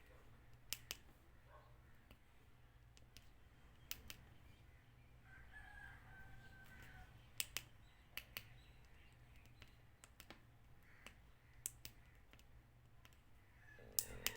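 Faint sharp clicks, several in quick pairs. A rooster crows in the background about five seconds in.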